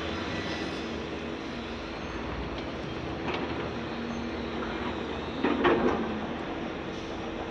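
Caterpillar 336 hydraulic excavator's diesel engine running steadily as it swings its empty bucket back to the dirt pile, with a loaded dump truck's diesel engine pulling away. A brief louder burst comes about five and a half seconds in.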